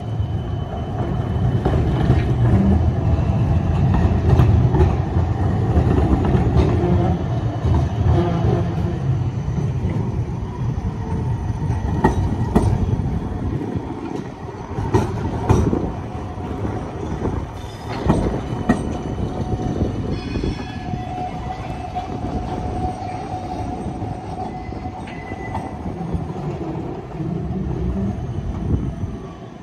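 Modern low-floor city trams passing close by on street track. The wheels make a heavy rumble, loudest in the first third, and there is a run of sharp clacks over rail joints and switches in the middle, with a steady whine now and then.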